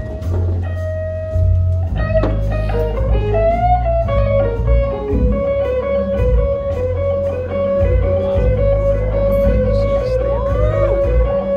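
Electric blues guitar solo played live over a bass-heavy band backing: a long held note, then fast repeated single notes picked on one pitch, with a bend near the end.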